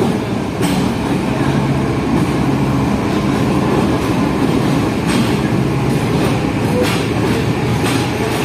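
A train running on the station tracks: a loud steady rumble with a few sharp clacks of wheels over rail joints.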